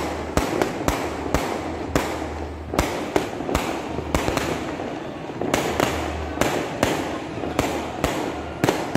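Aerial fireworks bursting overhead: a steady string of sharp bangs at irregular spacing, about one to two a second, over a continuous crackle.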